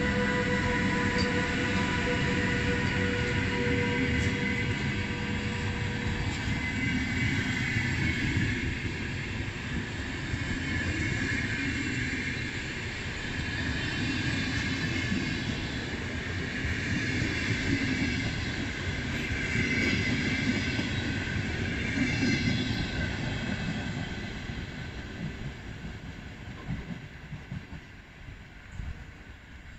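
VR Sr2 electric locomotive and its train of double-deck passenger cars rolling past close by as the train pulls out, wheels running on the rails. A steady whine is heard over the rolling noise in the first several seconds, and the noise fades near the end as the train draws away.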